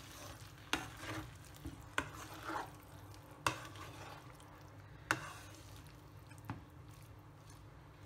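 Wooden spatula stirring a thick mix of vegetables, coconut and curd in a nonstick pan, with five sharp knocks of the spatula against the pan, one about every second and a half, over a faint steady low hum.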